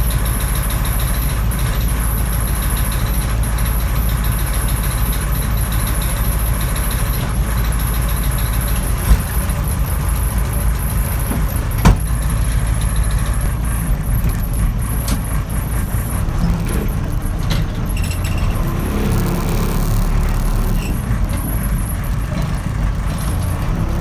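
1980 Case 580D backhoe's engine running steadily, heard from the operator's seat, with two sharp knocks about nine and twelve seconds in. The engine note shifts in the last several seconds as the machine moves.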